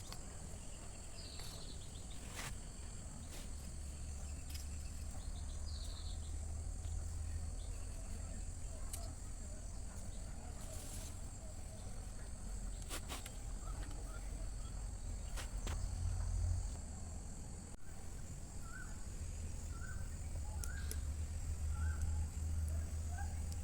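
Outdoor ambience: insects droning steadily at a high pitch over a low rumble, with a few scattered sharp clicks. Near the end comes a run of about six short, evenly spaced chirps.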